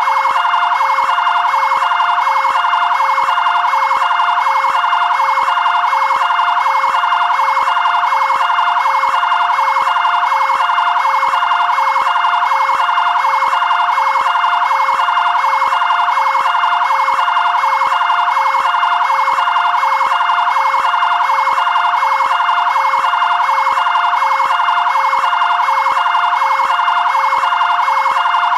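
Fire-department area-command vehicle siren sounding a steady two-tone pattern, two notes alternating evenly without pause.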